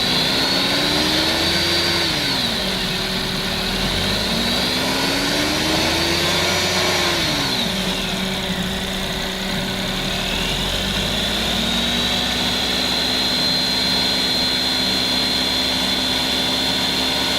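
Suzuki Alto engine revved up and back down twice, then raised again and held at steady higher revs. No rattle is heard: the worn alternator's rattle is cured by the new alternator and belts.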